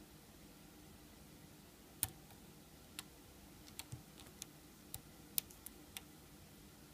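Small, sharp metallic clicks of a Peterson hook pick working inside the keyway of a pin-tumbler challenge lock, about nine of them at irregular intervals starting about two seconds in. The picker puts such clicks down to the pick grinding against the warding rather than pins setting.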